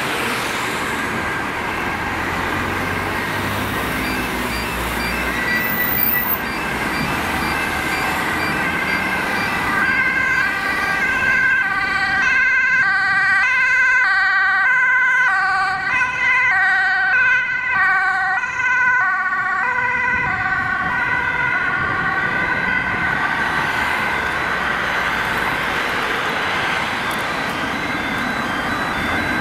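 Ambulance two-tone siren alternating between a high and a low note, growing louder as the ambulance comes close past the middle, then fading as it drives away, over the noise of road traffic.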